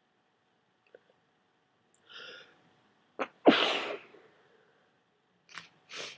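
A person with a head cold sneezing once, wet and hard: a catching intake of breath, then one loud sneeze about three and a half seconds in. Near the end come two short, quieter breaths.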